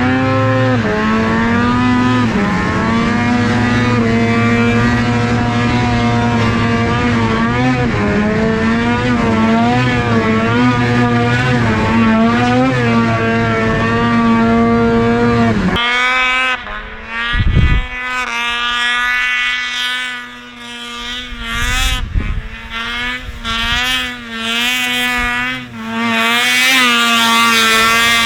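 Snowmobile engine running hard at high revs, its pitch rising and falling with the throttle. About halfway through the sound thins and comes in surges as the throttle is eased and opened again.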